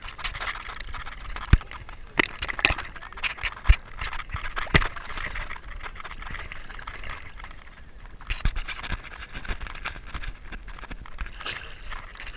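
Scraping and rustling with a string of sharp knocks, the loudest clustered in the first five seconds and again about eight seconds in.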